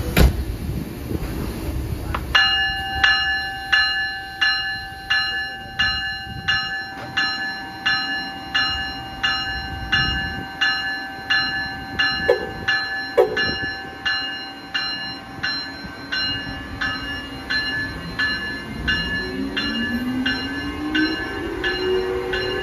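Bell on an Amtrak Siemens ACS-64 electric locomotive ringing steadily, a little under two strikes a second, as the locomotive moves past. Near the end a rising electric whine comes in as it picks up speed.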